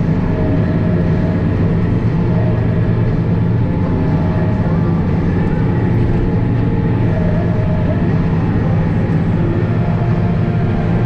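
International Harvester 1586 tractor's turbocharged six-cylinder diesel engine running steadily.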